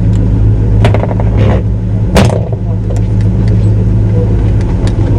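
A steady low engine hum runs throughout, with scattered clicks and a short rush of noise about two seconds in.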